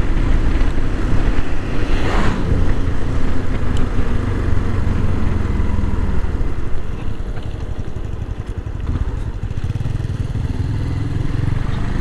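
Yamaha Lander 250 motorcycle riding along a road, engine running steadily under wind rush on the bike-mounted microphone. The sound eases off a little about seven seconds in as the bike slows, then builds again near the end.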